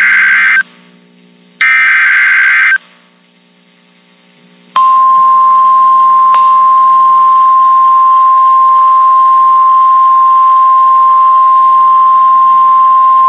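Emergency Alert System header: short bursts of digital data tones, each about a second long with a second's gap, then about five seconds in the steady single-pitch 1050 Hz National Weather Service warning alarm tone, which holds for about nine seconds. Together they announce a new weather warning.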